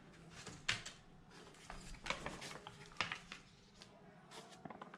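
Faint, short scratchy strokes and rustles spaced about a second apart over a low room hum: handling noises of something being written or moved.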